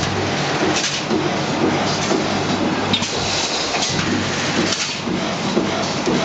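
Automatic steel mesh welding machine running: a steady mechanical clatter and hiss, with a low hum that switches on and off in short spells and occasional sharp clicks.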